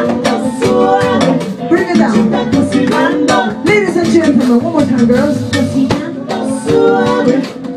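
Live band playing Latin-style music, with a busy drum kit and percussion under wavering melodic lines.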